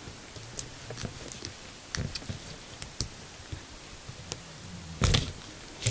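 Serrated knife blade sawing through a strip of double-sided mounting tape: small irregular clicks and scrapes, with a louder scuff about five seconds in.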